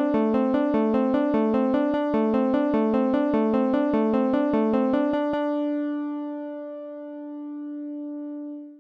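Background music: a synthesizer or electric-piano pattern of short repeating notes, about four a second, which stops a little past five seconds in and leaves one held note that fades and ends near the end.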